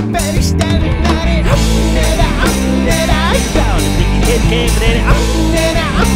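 Rock music from a full band, with a steady drum beat under bass and guitar.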